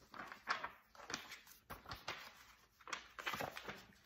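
Paper rustling and handling noise from a picture book having its page turned: a few short scrapes and a soft bump.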